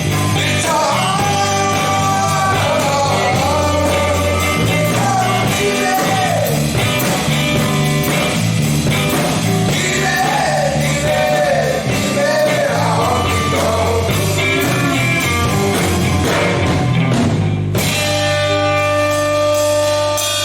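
Rock band playing with a lead singer over bass, guitar and drums; the singing stops about three-quarters of the way through, and after a short break the band holds a final chord.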